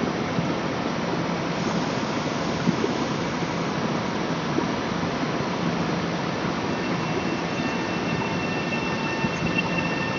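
Long Island Rail Road train running through the station: a steady rushing rail noise, with a faint thin high squeal from the wheels coming in about seven seconds in.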